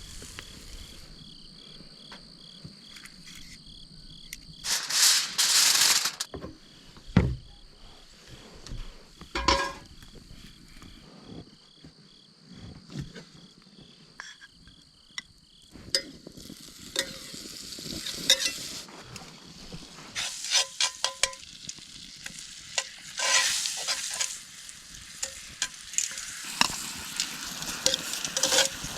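Steak sizzling over a wood campfire, with scattered crackles and pops and brief handling noises; a loud rustling burst comes about five seconds in, and the crackling grows denser in the second half.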